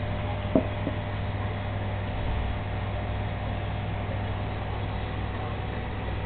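Steady low mechanical hum with a constant hiss. About half a second in there are two short taps, the first the louder.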